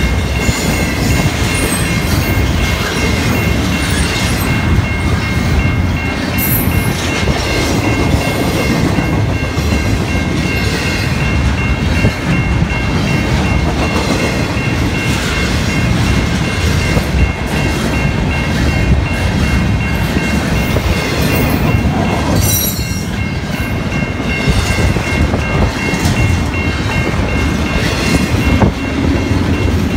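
Double-stack intermodal container train passing close by: steady rumble and clatter of its wheels on the rails, with a faint steady high whine over it and occasional short high ticks.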